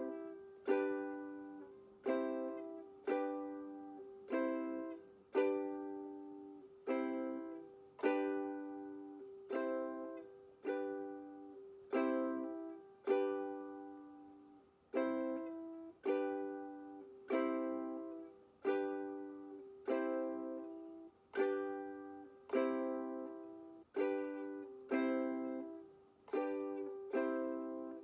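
Ukulele strumming single chords about once a second, changing back and forth between C and G, each chord left to ring and fade before the next one.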